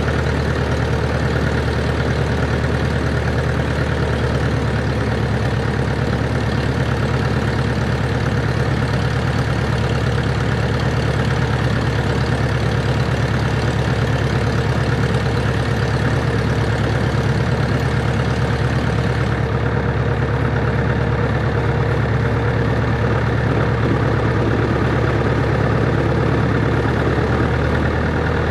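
Cessna 140 light airplane's engine and propeller droning steadily in cruise flight. About two-thirds of the way through, the higher hiss drops away suddenly while the engine drone carries on unchanged.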